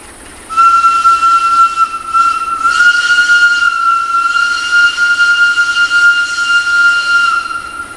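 Locomotive air horn sounding one long blast on a single high note, starting about half a second in, rising slightly in pitch a couple of seconds later, and stopping shortly before the end.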